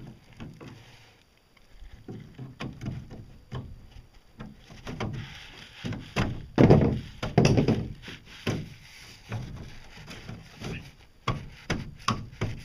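Short PVC pipe connectors knocking and scraping against the edge of a boat hull mold as they are fitted by hand. Irregular thunks and taps, with the heaviest thuds a little past the middle.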